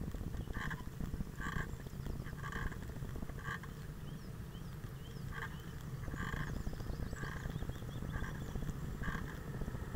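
Steady low rumble of wind and road noise from a moving vehicle, with a short two-tone chirp repeating roughly once a second and faint bird chirps above it.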